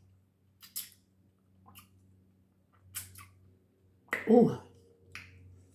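Close-up mouth sounds of a person eating: sharp lip smacks and clicks every second or so, with one short, louder voiced sound from the eater about four seconds in.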